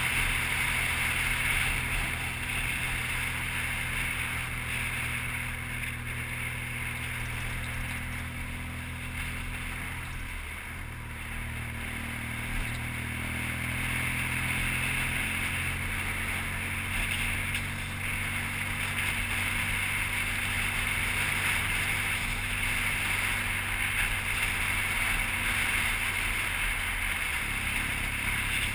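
BMW R1200GS boxer-twin engine running while the motorcycle is ridden at road speed, with steady wind rush over it. The engine note dips sharply twice, about ten seconds in and near the end.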